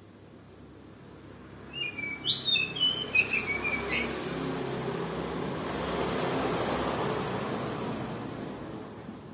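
Oriental magpie-robin of the Kalimantan race singing a short, rapid burst of varied whistled notes about two seconds in. Afterwards a rushing noise swells and fades over several seconds.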